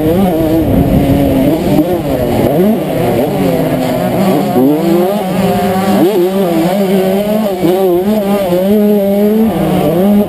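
1992 Honda CR125's 125 cc two-stroke single-cylinder engine revving hard under racing load, its pitch dropping sharply and climbing again several times with the throttle and holding steady for a few seconds midway.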